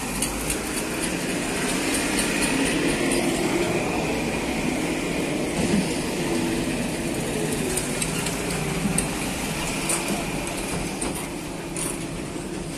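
Railway goods-yard ambience: a steady low rumble with scattered light metallic clinks and knocks.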